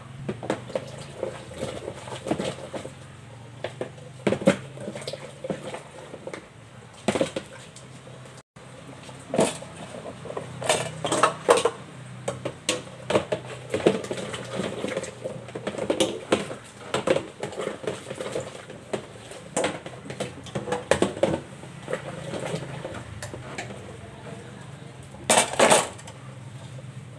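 Dishes and cutlery clattering as they are washed and handled, with irregular clinks and knocks throughout and a louder clatter near the end, over a steady low hum.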